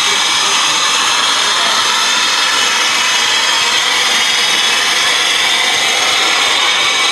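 Steady, loud hiss of steam escaping from the CPR 2023 steam locomotive.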